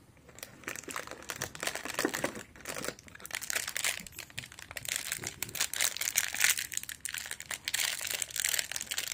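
Cardboard advent calendar door being pried open and a small wrapped item pulled from its compartment, with continual crinkling and rustling of cardboard and wrapping.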